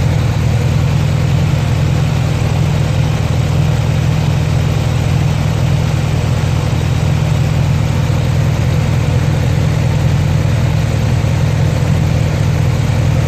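1986 Honda Gold Wing GL1200's flat-four engine idling steadily while warm. Its exhaust is smoking because cylinder number one is burning oil, which the owner puts down to the oil rings or compression rings.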